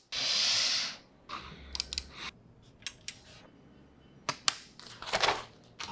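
A brief loud hiss of noise in the first second, then scattered light clicks and taps from desk gadgets being handled.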